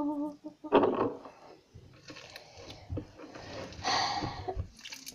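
Homemade slime being squeezed and kneaded by hand on a tabletop, with scattered soft squishing noises, the strongest about four seconds in. A short vocal sound comes in the first second.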